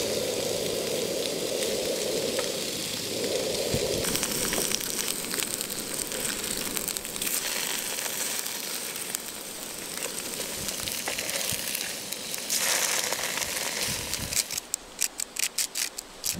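Tofu frying in oil in a Trangia frying pan: a steady crackling sizzle, with a spatula scraping the pan as the pieces are turned. Near the end comes a run of rapid, evenly spaced crunching clicks, about four a second, as seasoning is sprinkled over the pan.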